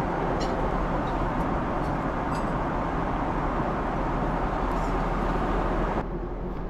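Steady airliner cabin noise in flight, an even rush of engine and airflow sound with a few faint clicks. About six seconds in it suddenly turns quieter and duller.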